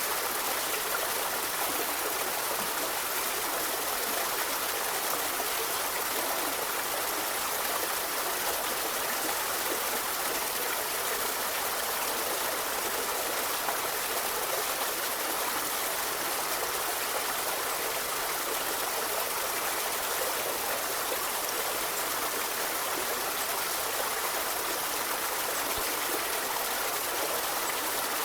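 A forest river flowing steadily, a continuous rush and trickle of water over stones.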